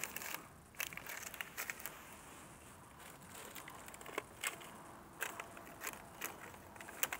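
A thin clear plastic cup crinkling and crackling in irregular short clicks as a puppy bites and paws at it.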